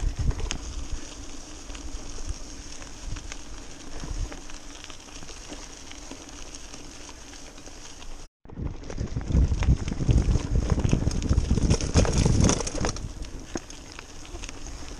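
Mountain bike tyres crunching and crackling over wet gravel, with the bike rattling and wind buffeting the microphone. A brief dropout comes about eight seconds in, and after it the rumble and crackle are louder.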